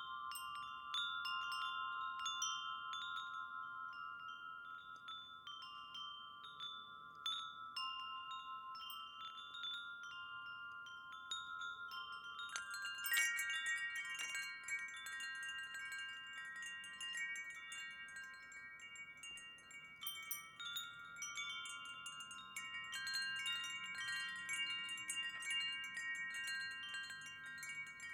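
Wind chimes ringing, struck over and over so their clear, lingering notes overlap. About thirteen seconds in a louder strike brings in a set of higher notes that ring on with the rest.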